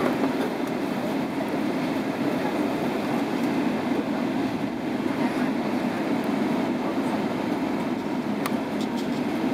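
Steady cabin rumble inside a Boeing 777-300ER taxiing, its GE90 engines at low taxi power and the cabin air conditioning running, with a few faint clicks near the end.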